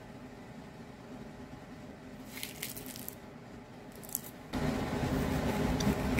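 A peeled mandarin orange being pulled apart by hand, with short squishy tearing crackles of the pith and segments about two seconds in. From about four and a half seconds, a louder, fuller sound as a knife cuts through the peeled fruit against a plate.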